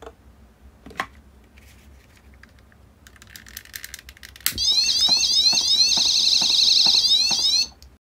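A long-nosed gas lighter clicks and hisses as it is lit, and about halfway through an Arduino-driven piezo speaker starts a loud electronic siren of repeated rising sweeps with a warbling stretch in the middle: the fire alarm triggered by its infrared sensor seeing the flame. The alarm cuts off abruptly near the end.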